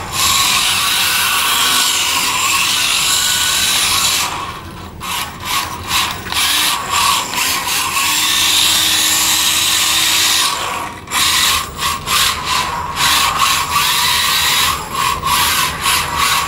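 GPToys S918 Drift Shark, a 1:26-scale four-wheel-drive mini RC drift car with a 130-size brushed motor, being driven hard on a concrete floor, its motor and gears giving a high-pitched buzzing whine. The sound drops out briefly about four seconds in and again near eleven seconds, then comes in short on-off throttle pulses toward the end.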